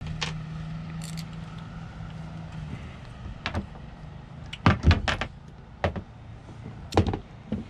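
Scattered sharp clicks and knocks of hand tools and small parts being handled on a jet ski engine as the ignition coils and their screws go back in, over a low steady hum that stops about two and a half seconds in.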